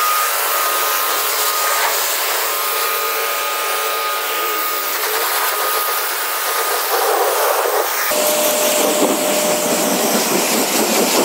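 Portable electric high-pressure car washer running, its water jet hissing steadily as it rinses shampoo foam off a car's body. About eight seconds in, the spray turns fuller and deeper.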